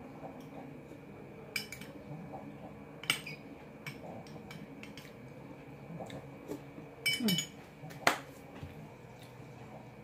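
Metal spoon clinking and scraping against a soup bowl as someone eats, a handful of sharp clinks spread out, the loudest about three seconds in and again near eight seconds, over a faint steady room background.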